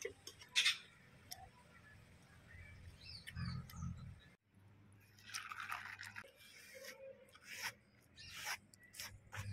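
Quiet eating and handling sounds: soft mouth sounds and clicks while eating by hand, then, after a short dropout about four seconds in, a wet hand wiping across a banana leaf in a run of rustling swishes and clicks.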